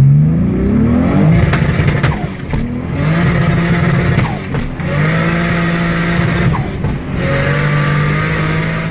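Turbocharged V6 engine being revved: the revs climb at first, then are held high in three long stretches, each broken by a brief sharp drop.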